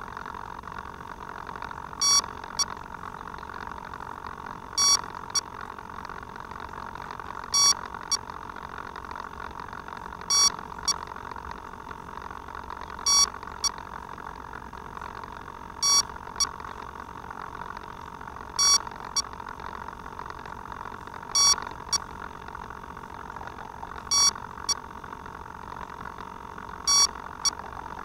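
Electronic beeper on a landed FPV flying wing sounding a double beep, a longer one then a short one, about every three seconds, over a steady hiss.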